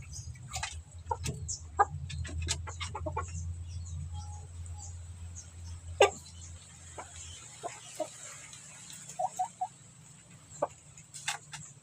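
Domestic chicken clucking in short, scattered calls, with sharp clicks and knocks in between, the loudest about halfway through. A low hum underneath stops a little past the middle.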